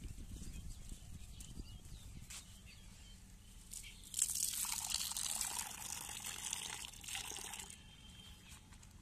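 Liquid being poured, an even hissing splash that starts abruptly about four seconds in and stops about three and a half seconds later.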